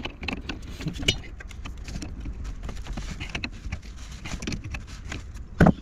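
Spanner clicking and scraping on the brass fittings of an unvented hot water cylinder while a new temperature and pressure relief valve is fitted. There are scattered small metallic clicks and one louder thump near the end.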